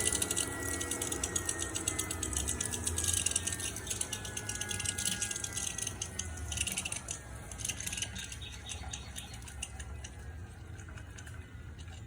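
Coolant trickling and air bubbles gurgling in a BMW N55's expansion tank while the electric water pump runs a bleed cycle, purging air from the cooling system. A fast, steady crackle of bubbling that fades gradually, over a low pump hum.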